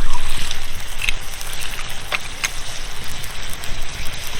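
Mixed vegetables with lentil dumplings sizzling and simmering in a pan over a fire, with a few sharp clicks.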